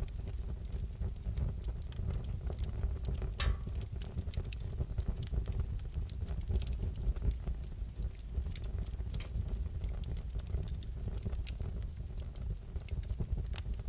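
Wood fire crackling in a fireplace: a steady low rumble with irregular small snaps and pops, one stronger pop about three and a half seconds in.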